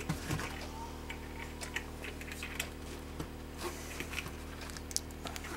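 Small scattered clicks and ticks of thin brass picture wire being worked into a knot at a metal screw eye with needle-nose pliers, over a steady low hum.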